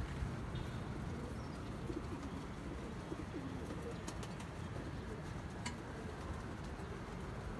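Pigeons cooing faintly over a steady low background rumble, with a couple of light clicks as the leg ring is handled about halfway through and again near the end.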